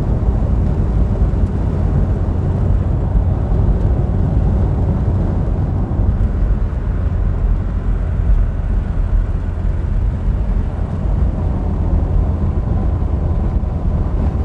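Citroën BX on the move: steady engine and road noise, a low rumble with no sharp events.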